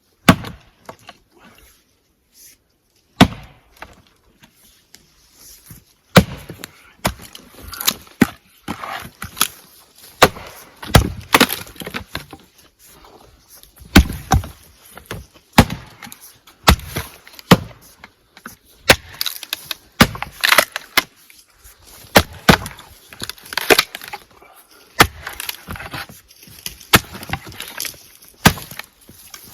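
Light splitting axe striking and splitting firewood rounds: a few single blows in the first six seconds, then blow after blow, often less than a second apart, with the wood cracking apart.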